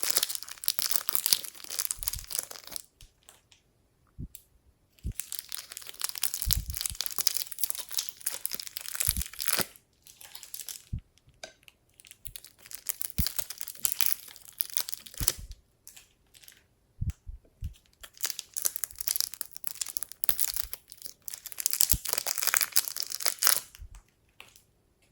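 Slime being squished and kneaded by hand, crackling and popping in several stretches of a few seconds each, with short pauses between.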